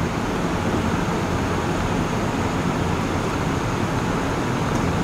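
Steady, even background noise of a commercial kitchen's ventilation and equipment running.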